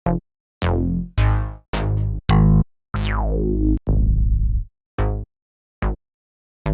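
Synthwave drum-machine one-shot samples played one after another, about ten short hits and synth-drum tones, each cut off by dead silence before the next. One, about three seconds in, glides down in pitch like a synth tom.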